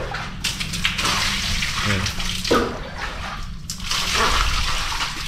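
Water running and splashing, in two stretches with a short let-up near the middle.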